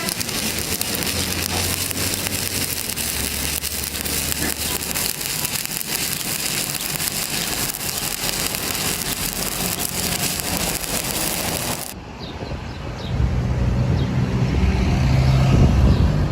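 Welding arc crackling and hissing steadily as a pass is run on a pipe. About twelve seconds in it cuts off abruptly, and a louder low droning hum takes over.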